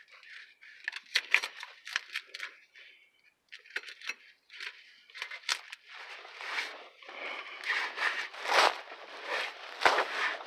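Irregular crinkling, clicking and scraping handling noises as an exhaust repair clamp is fitted by hand over tape on a tailpipe. The noises get denser and louder in the second half.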